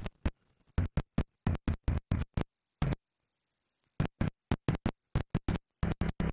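Background electronic music made of short, choppy pulses with silent gaps between them, pausing for about a second around three seconds in.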